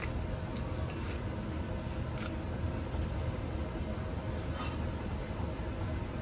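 Steady low mechanical rumble with faint steady tones, broken by two faint short clicks about two and a half seconds apart.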